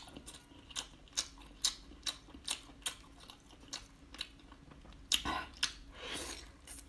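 Wet mouth clicks from chewing, about two a second. About five seconds in comes a louder wet bite and a short sucking sound as the head of a whole braised octopus is bitten into.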